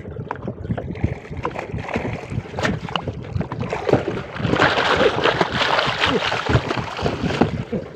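Hooked billfish thrashing at the surface alongside a small boat: a loud run of splashing that starts about halfway through, over wind on the microphone.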